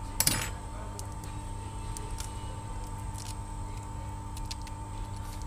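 The shattered display glass of a Samsung Galaxy J2 cracks and snaps as it is prised and pressed off the phone's frame. There is one sharp crack about a quarter second in, then scattered small ticks, over a steady low hum.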